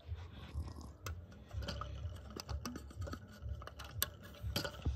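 Faint handling noise: scattered small clicks and scrapes over a low rumble, with a sharper click about four seconds in.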